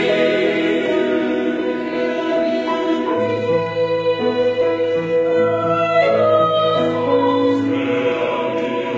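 Mixed choir singing held chords in several parts, with piano accompaniment; low voices come in underneath about three seconds in.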